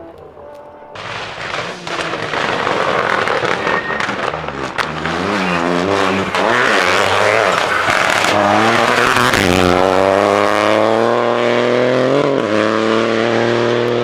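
Rally car engine revving hard on a tarmac stage, starting loud about a second in; the pitch dips and rises with the throttle, then climbs steadily as the car accelerates.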